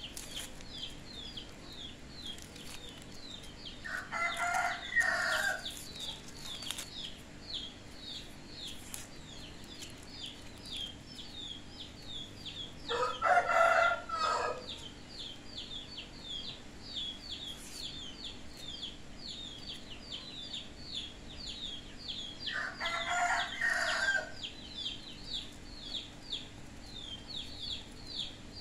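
A rooster crowing three times, about nine seconds apart, each crow lasting about a second and a half, over a steady run of fast, high chirping.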